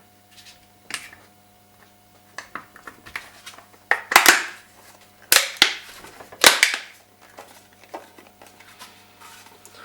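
Apple TV 4's cover being pressed back onto the housing: light ticks and then several loud, sharp plastic snaps in the middle as its clips latch into place.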